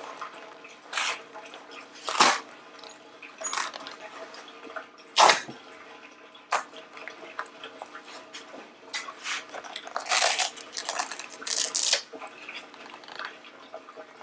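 Fabric-and-vinyl soft-top window skin being stretched and worked over a metal door frame by hand: irregular rustles, scrapes and taps, with a busier run of handling noise near the end.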